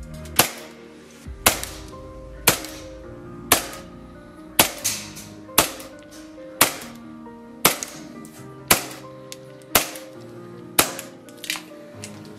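WE 1911 gas blowback airsoft pistol fired semi-automatically into a chronograph: about a dozen sharp cracks, roughly one a second. Background music plays underneath.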